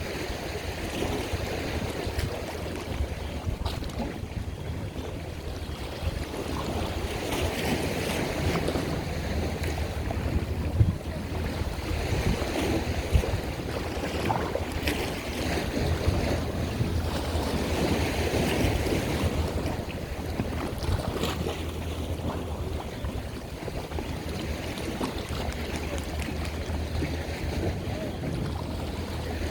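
Water washing and lapping in slow swells, with wind buffeting the microphone over a steady low rumble.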